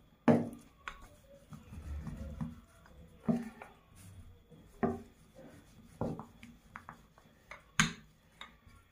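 Dough being pressed by hand and then rolled with a wooden rolling pin on a wooden cutting board: soft rubbing with several dull knocks of wood on wood, spaced a second or more apart.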